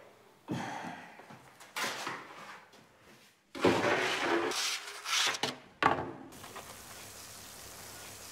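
Scrapes and knocks of a baker's long-handled peel working a wood-fired bread oven. From about six seconds in, a steady sizzle of dough frying in hot oil.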